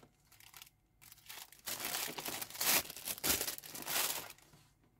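Clear plastic wrapping crinkling and rustling as a Casio G-Shock DW5600E is pulled out of its box and unwrapped. It starts about a second in, is loudest around the middle, and dies away near the end.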